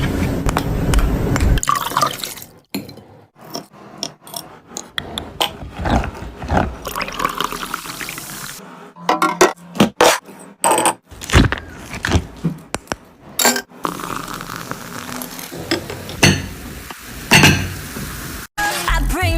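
Ice cubes clinking against a glass and liquid being poured over them, a string of sharp clinks mixed with splashing and pouring.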